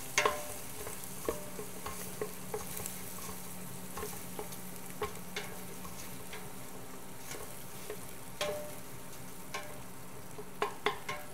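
Wooden spoon stirring sliced asparagus and onion frying in fat in a large stainless steel pot: scattered knocks and scrapes of the spoon against the pot over a light, steady sizzle.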